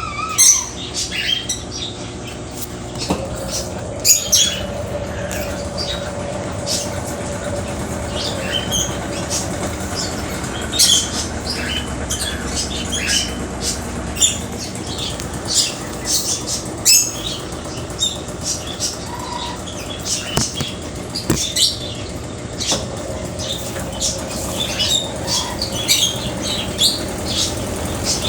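Brastemp Ative 11 kg top-loading washing machine running a spin cycle: a steady motor hum with a faint whine, peppered with many short, sharp high-pitched clicks and chirps.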